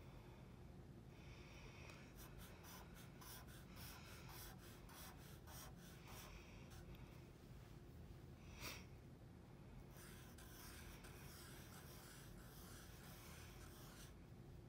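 Faint strokes of a black Sharpie permanent marker drawing lines on paper, in short repeated scratches with a lull partway through and one brief louder knock a little past the middle.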